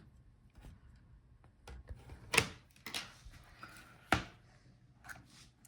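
A few sharp clicks and taps of plastic laptop display parts being handled, the loudest about two and a half and four seconds in, with fainter ticks between.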